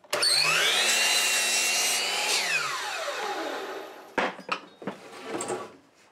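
Sliding compound miter saw starting with a rising whine and cutting through a short piece of old board. It is released about two seconds in, and the blade winds down with a falling whine. A few knocks of wood being handled on the saw follow near the end.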